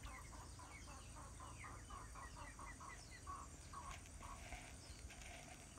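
Faint clucking of a chicken: a quick run of short calls, about four a second, that slows and stops about four seconds in.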